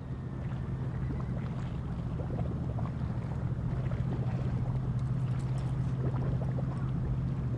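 High-speed catamaran under way: a steady low engine drone over a broad rush of water and wind, with scattered small splashes and crackles.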